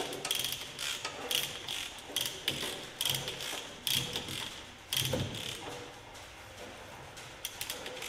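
Hand-operated chain hoist ratcheting in short bursts of clicks, about one to two a second, as it is worked to move a hanging backhoe swing cylinder. It quietens about two-thirds of the way through, with a few more clicks near the end.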